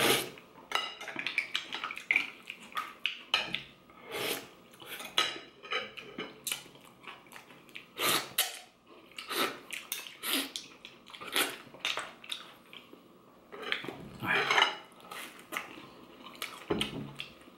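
Eating mussels: a metal spoon and mussel shells clinking against a bowl in short, irregular clicks, mixed with slurping of broth and chewing.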